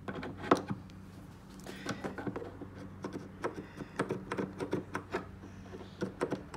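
Small plastic clamps clicking and knocking as one is set in place and tightened on a model airplane wing: one sharp knock about half a second in, then a run of light clicks and taps. A low steady hum underneath.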